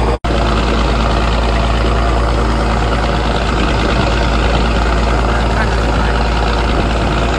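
Wooden fishing boat under way: its engine running with a steady low drone, and water rushing and splashing along the hull. The sound drops out for a split second near the start.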